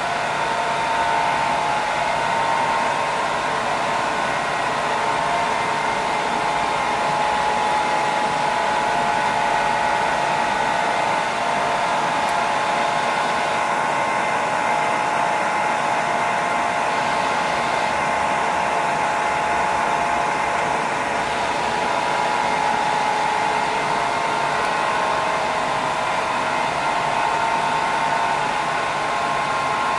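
Bavelloni PR 88 vertical straight-line glass edging machine, with eight grinding spindles, running: a steady whirring noise with a constant hum of several tones.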